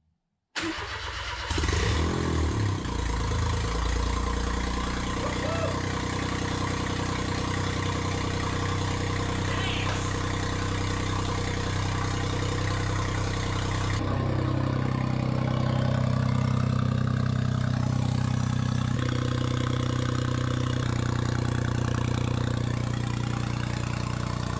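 Freshly built turbocharged Daihatsu Mira engine starting for the first time about half a second in, with no silencer fitted on the exhaust. It runs unevenly for the first couple of seconds, then settles into a steady idle whose note shifts about fourteen seconds in.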